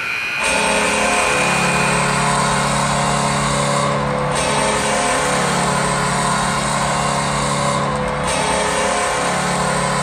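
Background music that starts abruptly about half a second in: dense, steady sustained chords, with the pattern shifting about every four seconds.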